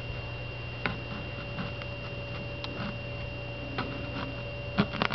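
Steady background hum with a faint high whine, and a few scattered sharp clicks, several close together near the end.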